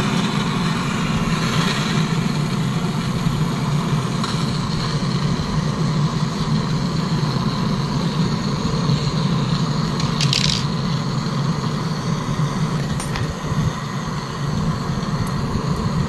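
Gas brazing torch flame burning steadily with an even rushing noise as it heats a copper line at a refrigerator compressor, bringing the joint up to temperature for brazing. A brief sharp click about ten seconds in.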